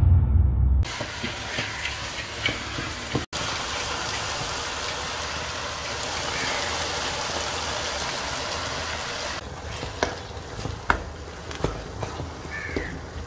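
Diced chicken and potato pie filling sizzling in a non-stick pan as a wooden spoon stirs it, with scattered sharp knocks and scrapes of the spoon against the pan.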